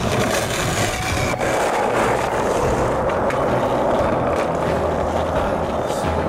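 Skateboard wheels rolling over skatepark ramps in a steady, loud rumble, with a sharp click a little over a second in.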